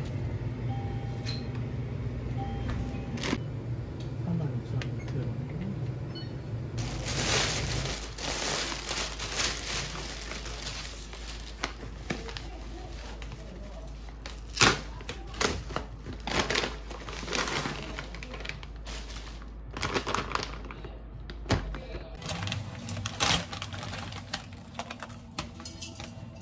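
Rustling and crinkling of a foil insulated bag and a plastic shopping bag being opened and unpacked, with sharp crackles and clicks. For the first several seconds a steady low hum sits under it.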